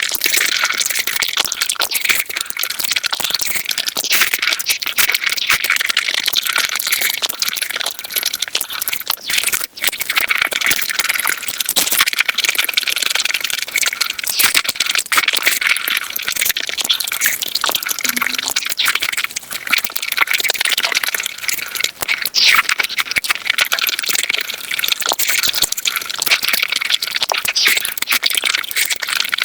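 Close-up eating sounds played back sped up: a dense, unbroken stream of rapid chewing clicks, crunches and wet smacking, thin and high with almost no low end.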